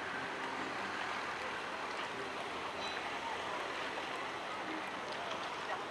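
Steady rushing wash of harbour water along a slowly moving sailing boat's hull, an even hiss-like noise with a few faint clicks.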